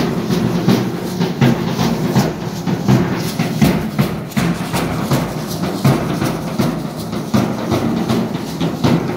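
Percussion-led dance music from a street band with a bass drum, the drum strokes keeping a steady beat over a sustained low accompaniment.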